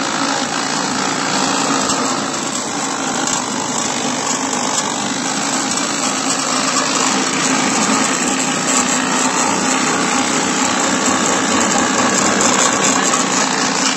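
Small engine running steadily, driving a belt-driven grass and banana-stem chopper as a banana stem is fed in and shredded.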